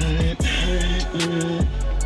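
Background music with a deep bass line and a steady drum beat.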